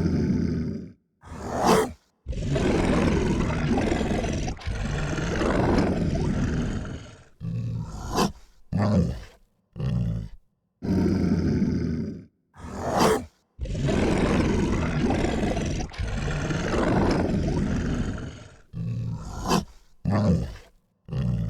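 Dog growling sound effect: long, low rumbling growls of several seconds alternate with short, sharp snarling bursts, each cut off abruptly into silence. The same sequence plays again about halfway through.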